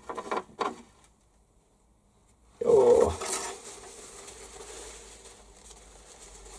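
Small metallic clicks and clinks at a stopped metal lathe, then a louder metal knock with a short ring about two and a half seconds in, followed by a faint steady hum.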